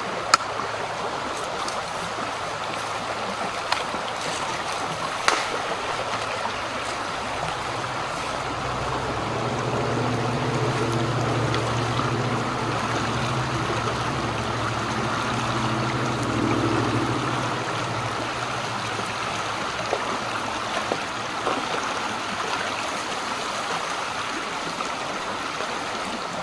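Shallow creek running steadily over a riffle. A low drone swells and fades in the middle, and there are a few sharp clicks in the first six seconds.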